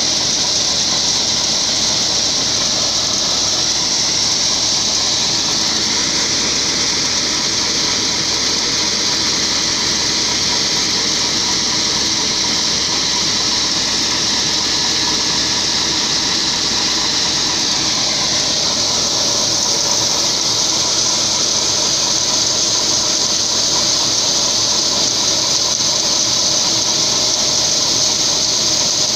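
John Deere 2056 combine harvester running while emptying its grain tank through the unloading auger: a steady engine and auger drone under a loud, even hiss of shelled corn streaming into a trailer.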